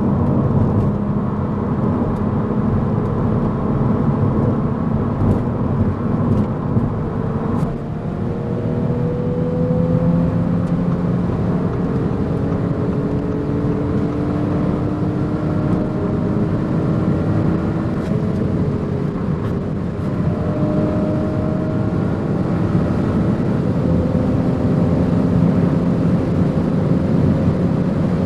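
Audi S5 Sportback engine pulling hard at high autobahn speed, its note climbing slowly through long gears, with a shift about 8 seconds in and another about 20 seconds in. Heavy wind and tyre noise run underneath.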